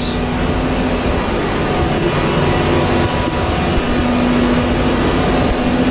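Steady hum of plant-room machinery, with circulation pumps and a reverse-osmosis water treatment system running: a constant low drone over an even hiss.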